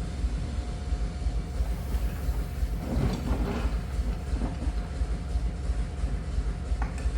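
A steady low machine rumble, pulsing rapidly, with a faint steady hum over it. A brief scraping rustle comes about three seconds in, and a single click near the end.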